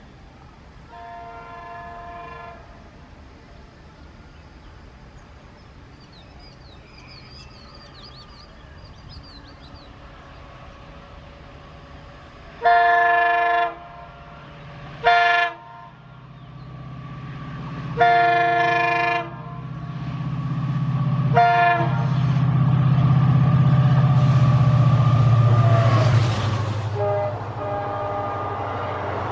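EMD WDP-4 diesel locomotive approaching and sounding its multi-tone air horn: a faint blast about a second in, then four loud blasts, long, short, long, short. Its engine rumble then builds to the loudest point as it passes close by, and eases into the steady rolling of the coaches behind it.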